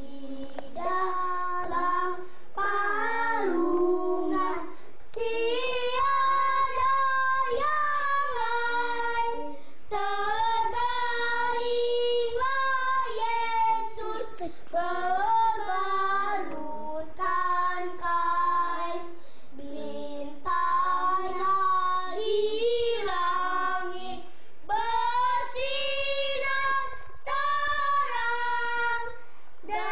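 A child singing a song unaccompanied, in phrases of held notes with short breaks between them.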